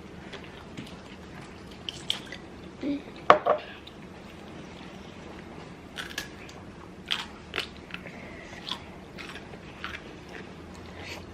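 Close-miked eating of noodles: scattered wet mouth smacks and chewing clicks, the loudest about three seconds in.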